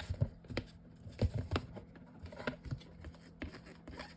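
Scattered light taps and clicks of hands handling paper-covered chipboard craft pieces, about half a dozen irregular knocks over the few seconds.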